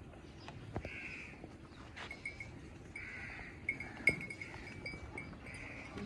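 Farmyard ambience in a water buffalo yard: a steady low background with soft animal sounds, runs of short high-pitched notes and a few light clicks, the sharpest about four seconds in.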